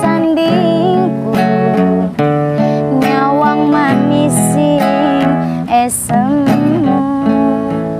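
Acoustic guitar strumming chords under a melody line with sliding, bending notes: an instrumental passage between sung verses of a Javanese song.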